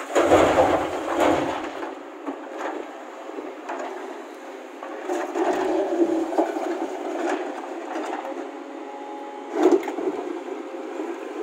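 Hyundai tracked excavator running steadily while it loads a dump truck. Loads of rock and dirt clatter into the truck's steel bed in noisy bursts: at the start, again about five seconds in, and briefly near ten seconds.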